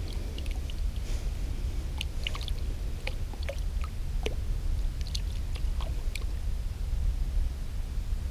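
Steady low rumble of wind on the microphone out on open ice, with scattered light clicks and ticks in the middle of the stretch.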